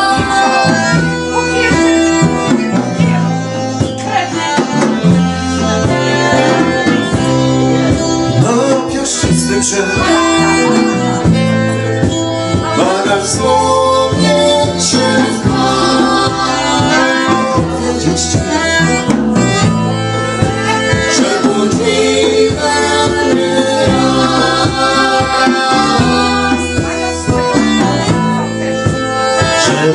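Live band music: accordion and acoustic guitar playing a continuous instrumental passage with a steady rhythm.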